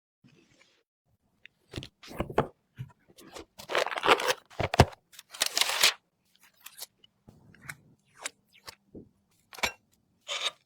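Hands handling PC parts and packaging: irregular crunching, rustling and sharp clicks in short bursts with brief gaps between.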